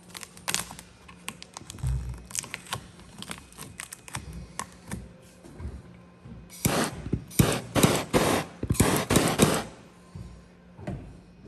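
Gloss black vinyl wrap film being handled and worked around a door handle: scattered light clicks and taps, then a quick run of loud crackly rustles between about seven and nine and a half seconds in.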